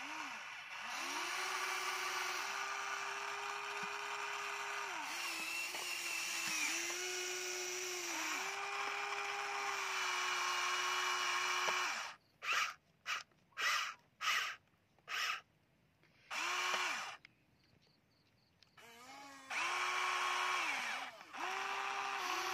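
Electric gear motors of a Huina radio-controlled toy excavator whining as it works its boom, arm and bucket. The sound comes in long steady runs that ramp up and down at each start and stop, then a string of short quick blips about halfway through, then longer runs again near the end.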